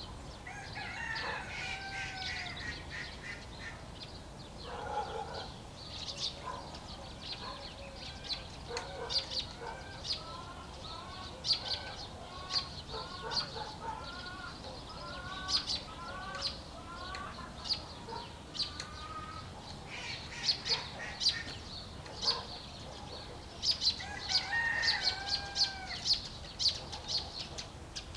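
A rooster crowing twice, once near the start and again near the end, over hens clucking and many small birds chirping.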